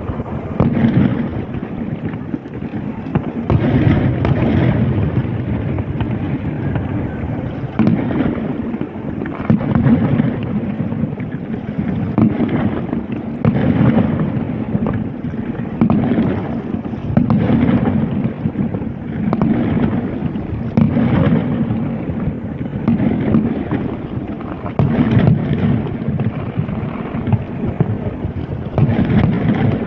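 Fireworks going off in a rapid, continuous series of bangs and booms, with a heavy low rumble that swells every second or two.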